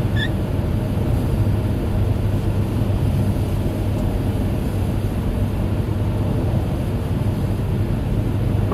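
Steady road and engine noise heard from inside a car cruising at about 80 km/h: a constant low hum with even tyre noise over it.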